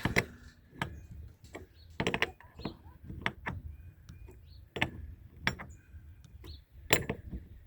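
Irregular knocks, clanks and clinks of hard objects being handled and set down, about a dozen separate sharp strikes with short gaps between them.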